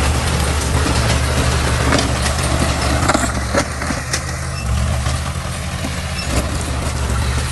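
Heavy diesel engine of earthmoving equipment running steadily at a low pitch, with a few sharp metallic knocks about halfway through.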